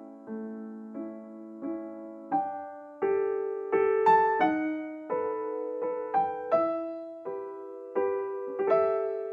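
Slow background piano music, single notes and chords struck about once or twice a second, each left to ring and fade.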